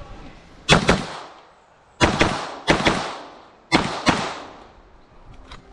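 Ferfrans 9mm pistol-caliber carbine firing about five shots, spaced irregularly, each sharp crack trailing off in a long fading tail.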